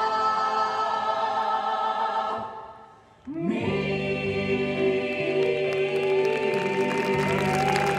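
Choral music with many voices holding sustained notes fades out about three seconds in. New music then begins, with low held notes and a single singing voice gliding over them.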